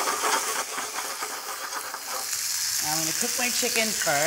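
Pieces of raw chicken breast sizzling in hot olive oil and garlic in a stainless-steel skillet: a steady frying hiss as the meat starts to brown.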